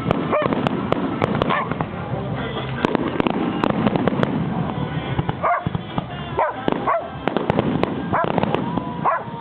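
Fireworks crackling and popping in a dense run of sharp cracks, with a dog giving short yelps about seven times over it.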